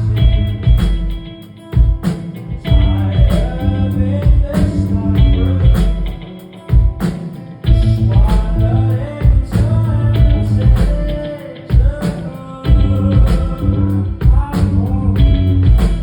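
Live rock band playing with a singer: drums, bass and electric guitar under a sung vocal line, with brief dips between phrases.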